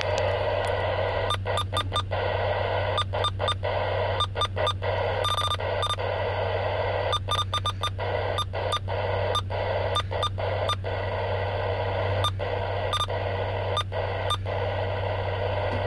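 Uniden Bearcat 980SSB CB radio on AM hissing with open receiver static, the residual noise left after ferrite chokes were fitted. The hiss is cut short again and again by short beeps as the channel knob clicks up through the channels. A low steady hum runs underneath.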